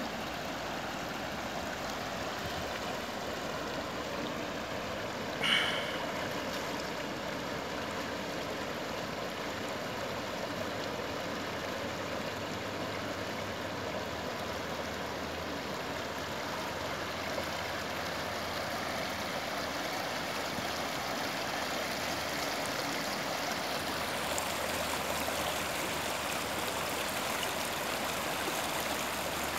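Shallow river water rushing steadily over and between rocks. A short, louder sound stands out about five and a half seconds in.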